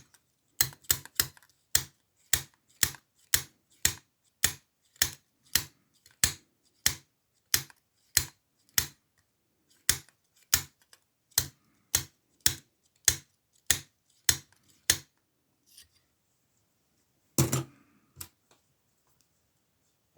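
Sharp metallic clicks from a lock pick working the pins of an older ASSA padlock's Ruko oval cylinder while picking for a deep false set, about two a second in an even rhythm. The clicking stops about three-quarters of the way through, and a louder clatter follows shortly after.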